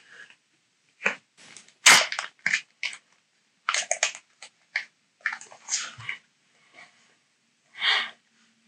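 A foil booster pack of trading cards being torn open and crinkled, with the cards rustling, in a string of short crackling bursts; the sharpest, loudest rip comes about two seconds in.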